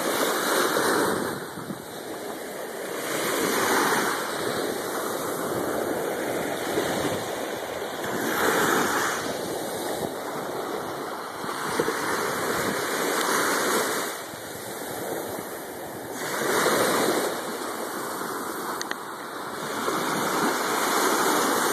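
Small waves washing through shallow water over sand. The wash swells and fades about every three to five seconds.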